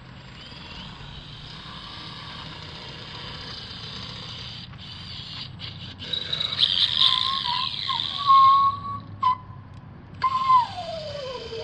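High-pitched whine of a power driver sinking long screws through the thermal wall's metal rails into the plastic cross ties of the ICF blocks. It grows louder about halfway through, with a few sharp peaks. Near the end a tone slides down in pitch and holds there.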